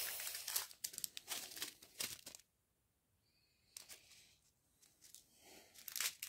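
Small plastic sachets of diamond painting drills crinkling as they are handled and sorted. The crinkling is thick for the first couple of seconds, stops for about a second, then resumes in short bits near the end.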